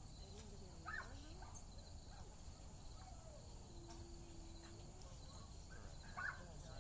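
Faint, steady chorus of crickets or similar field insects over a low outdoor rumble, with a couple of short faint calls about a second in and near the end.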